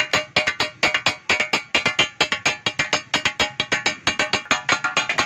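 Two steel cleaver blades chopping chicken qeema against a large flat iron tawa griddle, in a fast, even rhythm of about six ringing metallic clacks a second.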